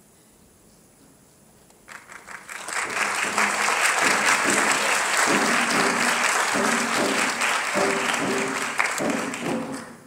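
Theatre audience applauding: after a quiet moment, clapping breaks out about two seconds in, swells to a loud, steady ovation and dies down near the end.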